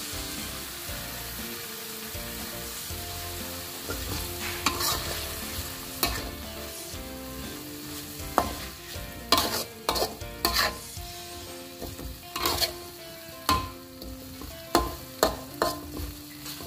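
A metal spatula stirs and scrapes a chilli-shallot sambal frying in a wok over a steady sizzle. Sharp scrapes and knocks of the spatula on the pan start about four seconds in and come more often in the second half.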